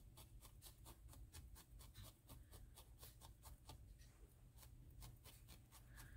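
Faint, rapid pokes of a felting needle jabbing into a roll of wool, about four or five a second, with a brief pause about four seconds in.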